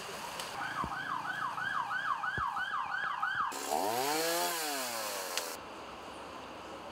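An emergency-vehicle siren wailing up and down about three times a second for about three seconds. Then a chainsaw revs up and back down once, cutting off suddenly about two seconds later.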